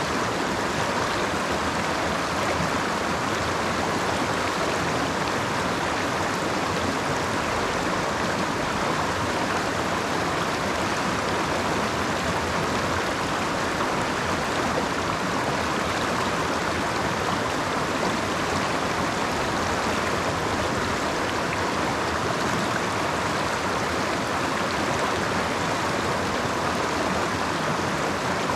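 Creek water flowing steadily, an even rushing sound with no breaks.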